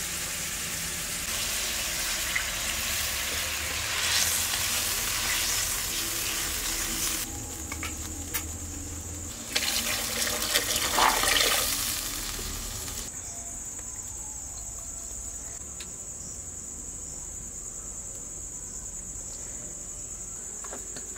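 Spices sizzling as they fry in hot oil in a metal wok. About ten seconds in, water is poured into the pan, giving a louder splashing sizzle for a few seconds, which then settles to a quieter simmer.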